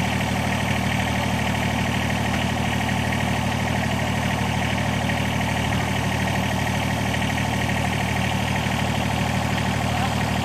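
A motor running steadily at idle, a low, even hum with no change in pitch or level.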